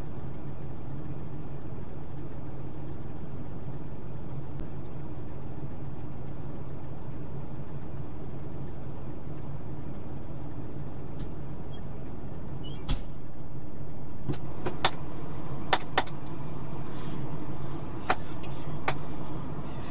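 Pickup truck engine idling steadily, heard from inside the cab. A door shuts about 13 seconds in, followed by several sharp clicks.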